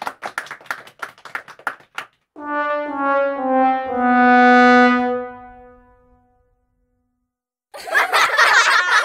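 Sad trombone sound effect: four descending brass notes, the last one held long, the comic 'wah wah wah waaah' of failure. It follows about two seconds of dying-away clapping clicks, and a burst of laughter breaks in near the end.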